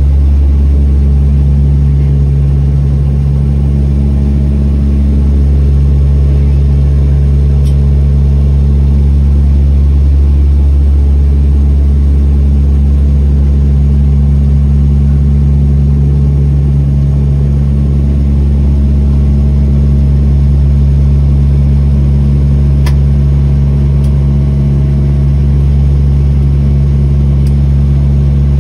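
Turboprop airliner's engine and propeller, heard inside the passenger cabin beside the propeller: a loud, steady low drone with a deep, even propeller hum.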